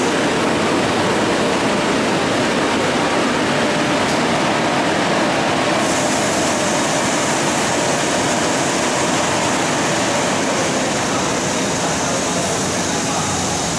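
Smart Cyclone automatic car wash machine running with a steady rushing noise; the hiss grows brighter about six seconds in.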